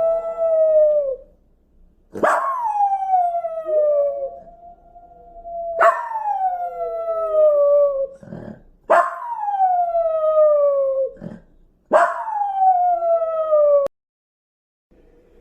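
Wolf howl sound effect played through a speaker: a string of long howls, each starting sharply and falling steadily in pitch, about every three seconds. It cuts off abruptly near the end.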